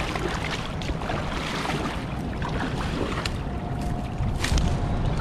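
Wind rumbling on the microphone over water sloshing around the legs of someone wading in a shallow river, with a couple of short clicks near the end.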